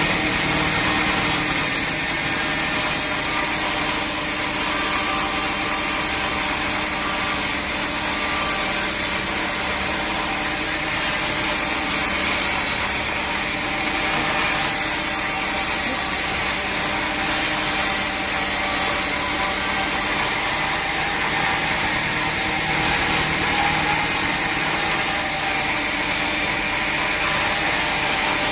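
Sawmill saw cutting through teak wood, a steady continuous cutting noise with the machine's constant tones running underneath.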